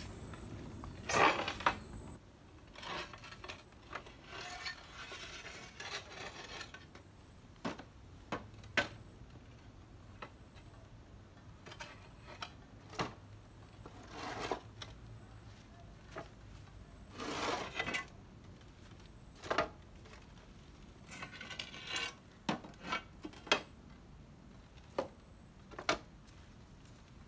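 Loose wooden planks being handled and stepped on: scattered sharp knocks and clicks, with several bursts of scraping.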